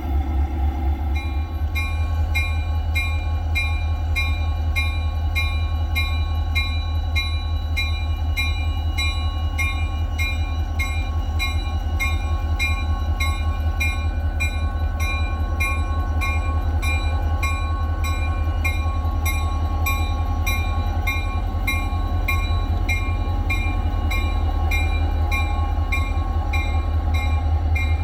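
EMD GP40-2 diesel-electric locomotive, its turbocharged 16-cylinder engine running with a low steady rumble as it rolls slowly past. About a second in, a bell starts ringing steadily, roughly one and a half strokes a second.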